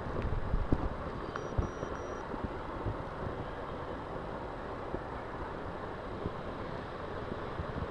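Steady wind and traffic noise on the microphone, with a few short knocks and three short high beeps about a second and a half in; no cat calls are heard.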